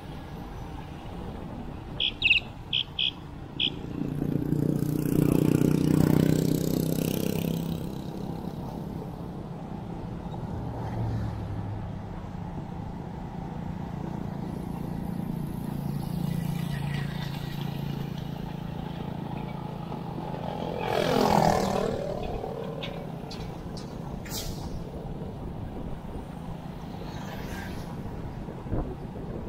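Road traffic heard from a moving e-bike, with wind noise on the microphone. Four short high beeps sound near the start. A motor vehicle passes about a sixth of the way in, its engine hum carrying on for a while, and another passes, its pitch sliding, about two-thirds of the way through.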